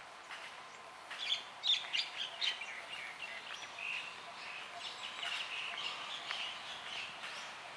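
Birds chirping in quick, overlapping calls, busiest from about a second in and then running on as steady chatter.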